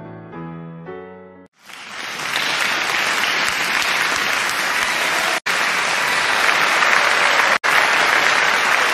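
A few closing notes of music fade out, then loud, steady applause starts about a second and a half in and runs on, dropping out abruptly for an instant twice.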